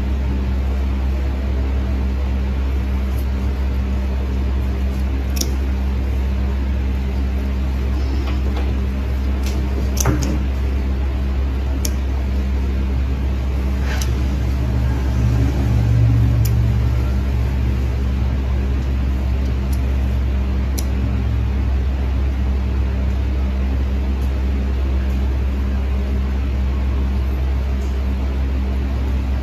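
Steady low mechanical hum, with scattered sharp clicks of steel toenail nippers snipping into a thick, overgrown toenail.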